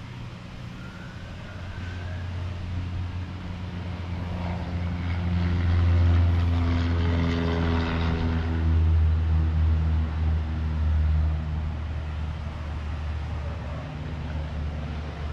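A propeller aircraft's piston engine running at a steady pitch, growing louder over several seconds and then fading, as a plane passes or taxis by.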